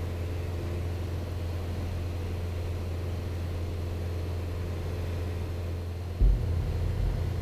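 Piper PA-28 Archer 180's four-cylinder Lycoming engine and propeller droning steadily in cruise, with a deeper low rumble coming in about six seconds in.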